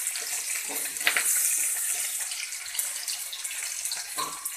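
Sliced onions with green and dried red chillies sizzling steadily in hot mustard oil in a kadhai, frying toward golden, with a spatula scraping and knocking against the pan a few times.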